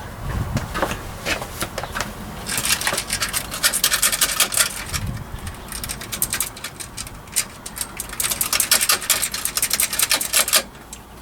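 Rapid metallic clicking and scraping, densest from about two and a half seconds in until shortly before the end: a motorcycle cam chain being worked by hand onto the camshaft sprocket teeth while setting the valve timing.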